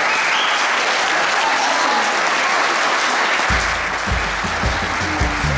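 Audience applauding steadily. About three and a half seconds in, music with a heavy low bass beat comes in under the clapping.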